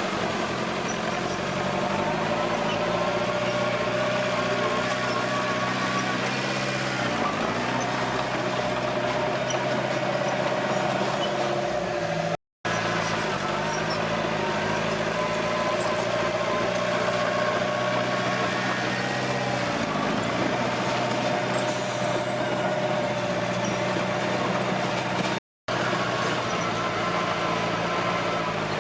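Komatsu D21P bulldozer's diesel engine running steadily, with a steady high whine over it; the engine pitch dips briefly twice.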